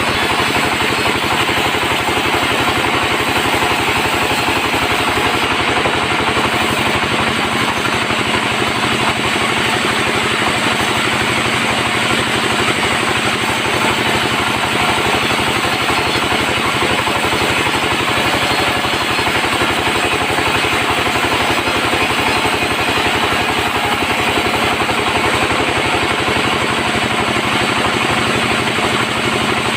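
Sawmill bandsaw running steadily with a fast, even mechanical rattle and hum, sawing mahogany timber.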